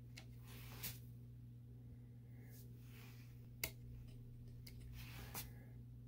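Three small clicks of the Basys 3 FPGA board's slide switches being flipped by hand, the sharpest about three and a half seconds in, over a faint steady low hum.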